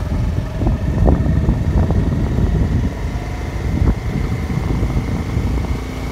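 Steady engine and road noise heard from inside a vehicle driving along a paved road, mostly a low rumble.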